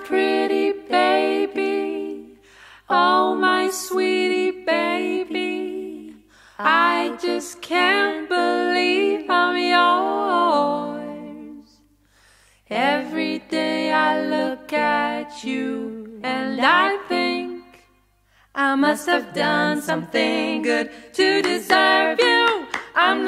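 Background music: an a cappella vocal group singing in close harmony, in short phrases with brief pauses between them and no instruments.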